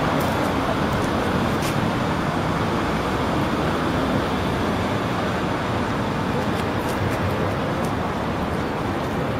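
Steady road traffic and city street noise, a continuous even hiss and rumble.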